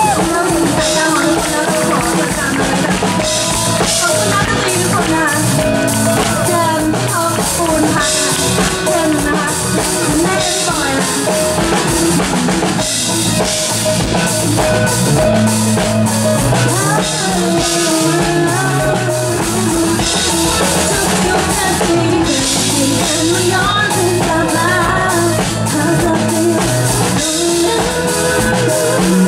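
Live band playing a song: drum kit, electric guitar and bass guitar, with a woman singing into a microphone over the top.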